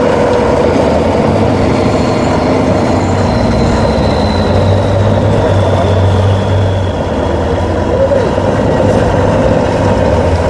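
Mercedes-Benz Unimog trial truck's engine running under load as it crawls over a sand hill, a loud steady noise whose low hum swells in the middle. A faint high whine slowly falls in pitch over the first half.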